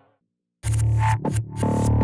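Arturia Vocoder V software synthesizer: a fading tone dies away to a brief silence, then about half a second in a new electronic patch starts, with a heavy deep bass and gritty high sounds chopped into a stuttering, dubstep-like rhythm.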